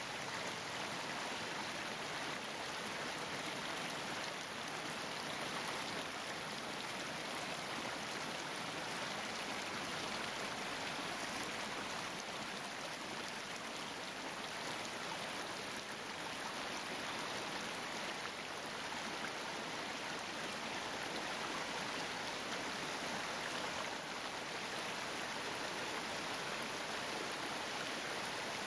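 Small creek running and splashing down little cascades over rocks: a steady rush of water.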